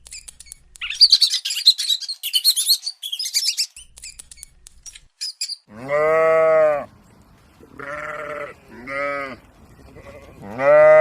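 Rapid high-pitched bird chirping for the first few seconds, then four loud drawn-out animal calls from a farm animal or fowl, the first and last about a second long.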